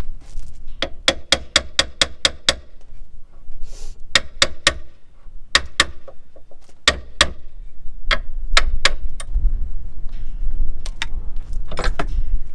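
Sharp metal-on-metal taps with a short ring, in quick runs of several strikes and then pairs and threes: a hammer tapping a sterndrive alignment tool that will not slide freely through the gimbal bearing into the engine coupler. A low rumble sits under the last few seconds.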